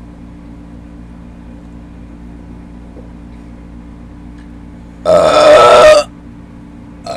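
A person's loud, deliberate burp about five seconds in, lasting about a second, over a steady low background hum.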